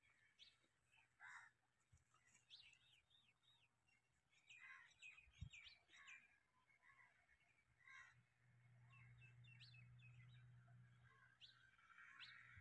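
Near silence with birds chirping here and there. A faint steady low hum comes in about two-thirds of the way through.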